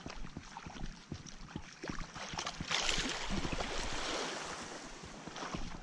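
Small waves lapping at the water's edge, with a louder wash up the sand about three seconds in. Wind buffets the microphone throughout.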